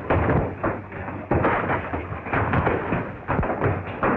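Saloon fistfight: a rapid, irregular run of punches, thuds and scuffling bodies and furniture over a continuous noisy din.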